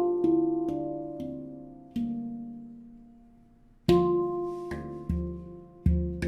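D Kurd 13 handpan (Maru 2nd generation) played by hand: a few struck notes ring out and die away to a near-silent pause, then a new phrase starts about two-thirds of the way through with deeper, louder notes.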